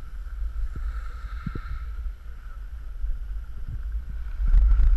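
Wind buffeting an action camera's microphone while skiing down a groomed piste, with the steady hiss of skis running over the snow. The wind rumble grows louder near the end as speed picks up.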